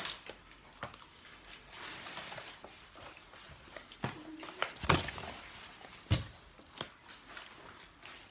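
Fast-food packaging being handled on a table: paper rustling and a few sharp knocks, the loudest two about five and six seconds in.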